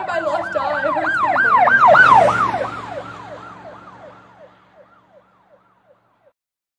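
A siren yelping, its pitch sweeping up and down about three times a second; it swells to its loudest about two seconds in, then fades away and is gone shortly before the end.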